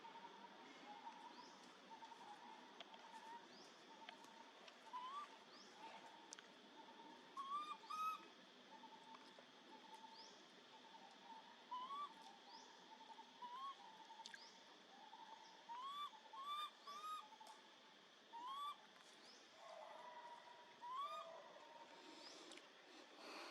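Baby monkey crying: about a dozen short, high cries, each rising in pitch, several in quick runs of two or three, over a faint, steady, thin whimper.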